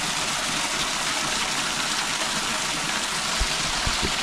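Outdoor shower of stream water gushing steadily and splashing as it pours over a bather. A few dull bumps come near the end.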